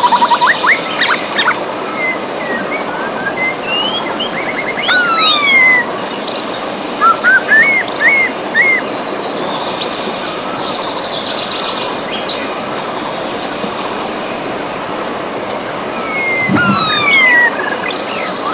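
River water running steadily, with several songbirds calling over it: short whistled notes and downward-sliding calls in bursts near the start, a few seconds in, and again near the end.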